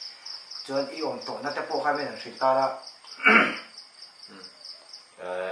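A cricket chirping in a steady, high-pitched, rapidly pulsing trill under people talking. A short loud burst of noise comes about three seconds in.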